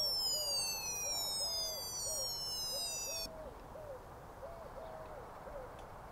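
Battery toy fire engine's electronic siren wailing, its pitch sliding slowly down before it cuts off suddenly about three seconds in. A pigeon coos repeatedly in short phrases throughout.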